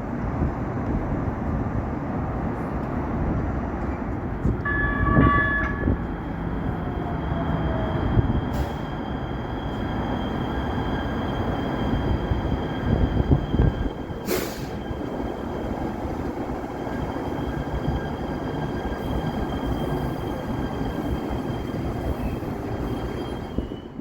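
Los Angeles Metro Rail train running with a steady rumble. A short pitched tone sounds about five seconds in, a thin high steady tone runs from about seven seconds on, and there is a sharp click about fourteen seconds in.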